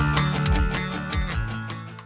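Rock music with guitar and drums, fading out.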